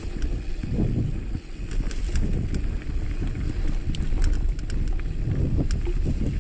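Mountain bike riding over a dirt singletrack: a steady low rumble of the tyres on dirt with wind buffeting the microphone, and scattered sharp clicks and rattles from the bike.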